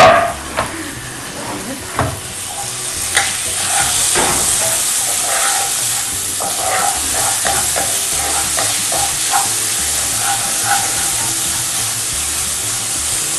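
Small pieces of chicken sizzling in a frying pan with garlic as a spatula stirs them, with scrapes and taps of the spatula on the pan. The sizzle is quieter for the first few seconds, then steady.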